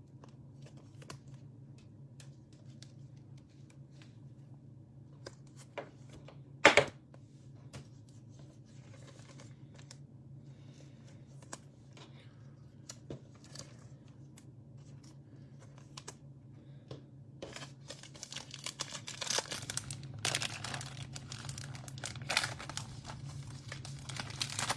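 Gold foil football-card pack being torn open, its wrapper crinkling and tearing densely from about two-thirds of the way in. Before that there is only quiet handling with scattered small clicks and one sharp knock about a quarter in, over a steady low hum.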